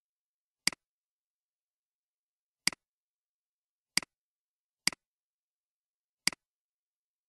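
Five sharp computer mouse clicks, each a quick press-and-release double click, spaced unevenly with silence between.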